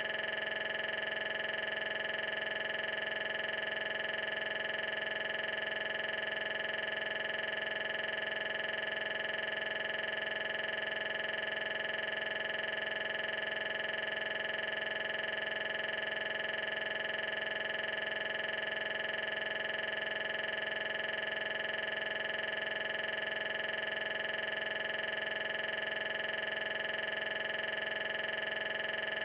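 Steady electronic drone made of several fixed tones, unchanging in pitch and level, with no engine or road sound coming through even as a car comes into view: a recording artefact, not a live sound.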